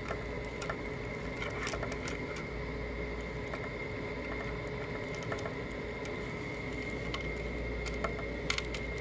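Faint scattered ticks and light handling noise as a wire fan clip is worked into the corner hole of a plastic cooler fan frame, over a steady background hum with a thin high tone.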